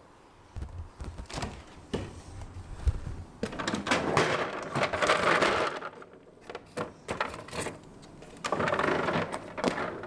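A freezer being opened and a frozen gel eye mask taken out of a drawer of plastic ice-cube trays: a run of knocks and clicks, then two longer stretches of sliding, scraping noise, one near the middle and one near the end.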